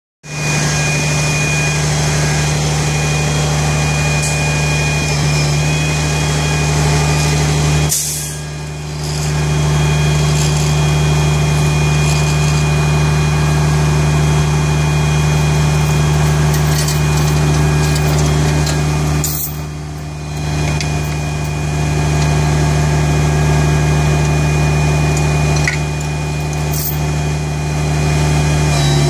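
Tow truck engine idling steadily, with two brief dips in the sound, each starting with a sharp click.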